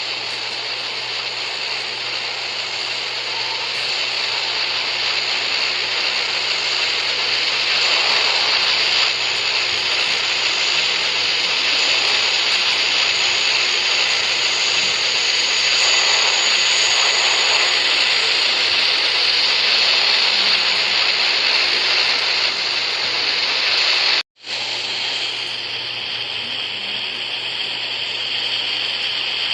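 Turboprop airliner engines running, a loud steady high-pitched hiss and whine with a low hum under it, growing louder over the first several seconds. It cuts out sharply for a moment about 24 seconds in, then carries on at a slightly different pitch.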